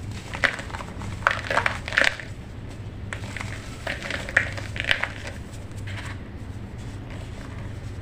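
Chunks of baking soda being crumbled and crushed. There are two runs of crisp crunches, one from about half a second to two seconds in and another around four to five seconds, with quieter crumbling after. A low steady hum runs underneath.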